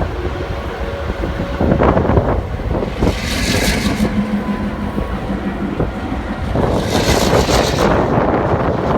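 A train running, with two louder hissing surges partway through, heard with wind buffeting the microphone.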